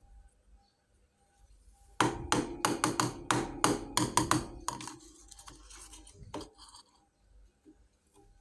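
Small miniature toy kitchen pieces clicking and clattering against each other as they are handled: a quick run of sharp clicks, about five a second, starting about two seconds in. It tails off into a few softer knocks.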